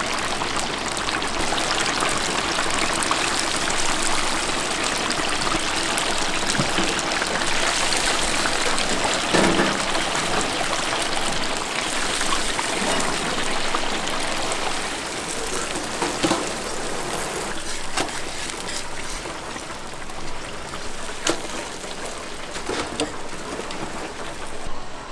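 Hot oil in a deep fryer sizzling steadily around frying chicken, with scattered small pops.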